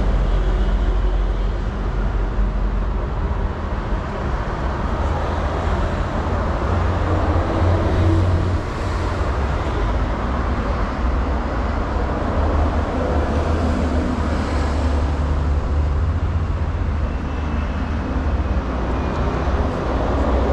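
Steady city street noise: road traffic running past, with a deep, constant low rumble.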